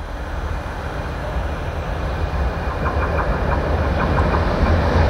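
Class 186 (Traxx) electric locomotive hauling a freight train approaching at speed: a rumble that grows steadily louder, with wheel clicks over the rails joining in the second half.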